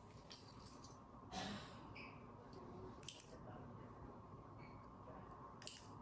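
Near silence: faint room tone with a soft rustle early on and two short, quiet clicks about three seconds apart.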